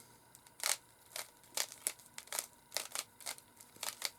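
A Rubik's Cube's plastic layers being twisted by hand: a quick run of short, sharp clicks, about two or three a second.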